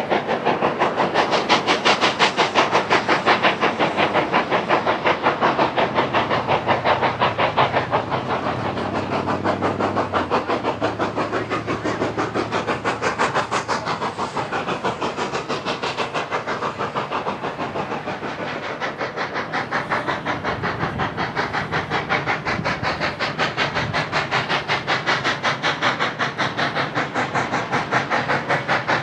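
Narrow-gauge steam locomotive working a train, its exhaust chuffing in a quick, even rhythm, with steam hiss and rolling cars.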